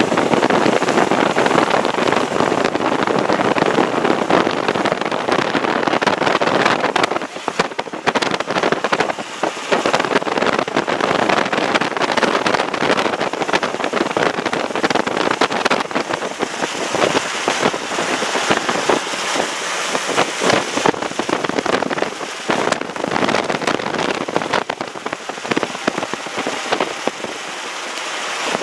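Rain pattering steadily on a moving car, mixed with tyre and road noise.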